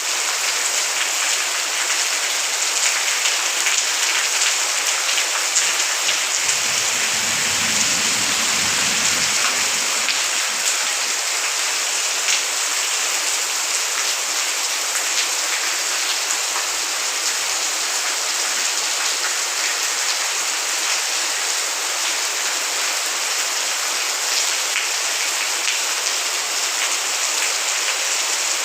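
Heavy rain pouring steadily, with many drops pattering on surfaces. A brief low rumble about seven seconds in.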